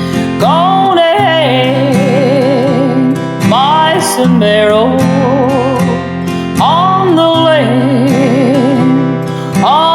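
Wordless country-style singing with a wide vibrato over a strummed acoustic guitar; the voice swoops up into a new phrase about every three seconds.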